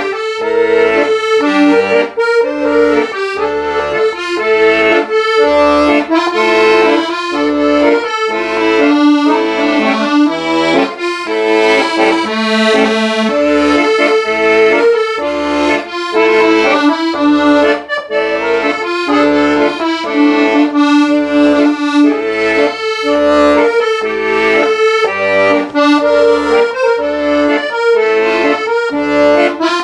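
Accordion playing a melody over a steady, evenly pulsing bass-and-chord accompaniment.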